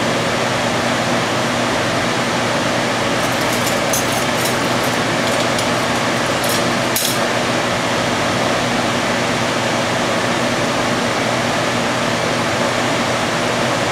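Lampworking bench torch burning with a steady rushing hiss over a low steady hum, with a few faint light clicks between about three and seven seconds in.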